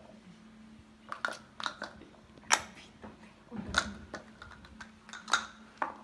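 Plastic ludo tokens clicking and tapping on the board as players pick them up and set them down: about a dozen sharp, irregular taps, the loudest about two and a half seconds in, over a faint steady hum.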